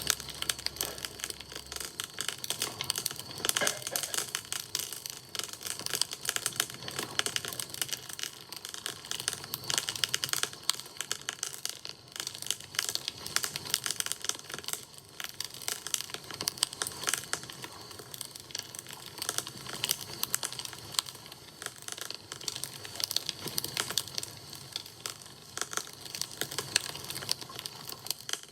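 Campfire crackling: burning wood giving a dense, irregular stream of small pops and snaps.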